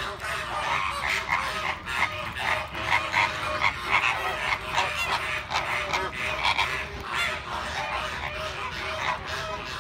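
A flock of flamingos calling, many birds at once: a dense, unbroken chatter of short, overlapping calls.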